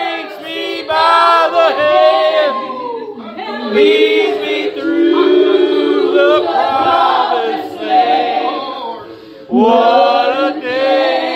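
Choir of voices singing together in long held notes, easing off briefly about nine seconds in before coming back in full.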